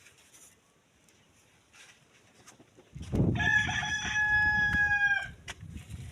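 A rooster crowing once, a single drawn-out call of about two seconds that starts about three seconds in, over a low rumbling noise.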